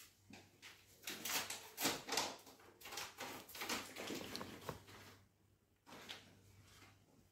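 A run of quick scrapes and knocks, loudest in the first half, with one more short scrape about six seconds in: a spoon scooping tomato sauce out of a small ceramic bowl.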